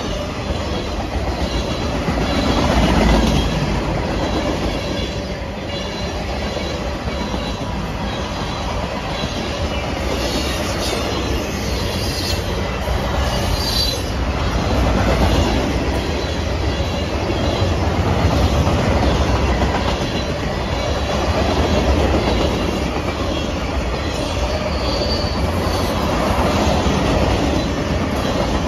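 Freight cars of a mixed train rolling past at speed: a steady rumble and clatter of steel wheels on rail, swelling every few seconds as cars go by, with a few faint high wheel squeals.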